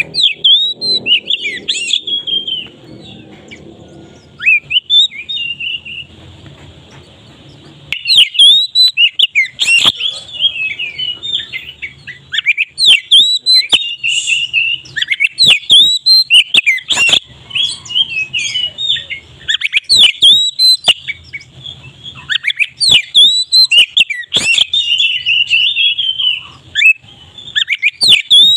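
Oriental magpie-robin (kacer) singing a loud, full song of rapid, varied whistles and sharp chattering notes. It is softer and broken for a few seconds near the start, then loud and almost unbroken.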